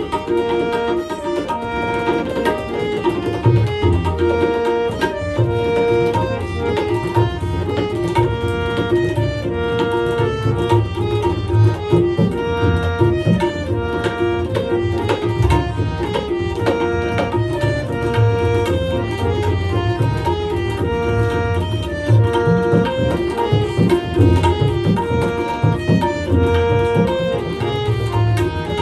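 Harmonium playing a melody of held reedy notes, accompanied by tabla: quick strokes on the right-hand drum and deep booming strokes on the left-hand bass drum.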